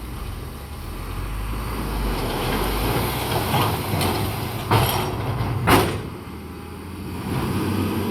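Heavy diesel earthmoving machinery running with a steady low engine note, with two sharp short bursts about five and six seconds in, after which the engine drops back and then picks up again.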